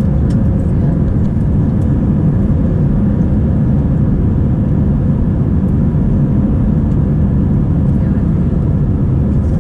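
Steady cabin noise of an Airbus A320-214 climbing after takeoff, heard from inside the cabin over the wing: its two CFM56-5 turbofan engines at climb power and the rushing airflow, with a steady tone under the noise.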